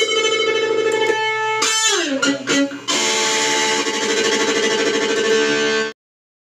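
Electric guitar with distortion played through the Joyo Vision dual-modulation pedal. Held notes waver with the modulation, then slide down in pitch about two seconds in. A strummed chord rings for about three seconds and cuts off abruptly.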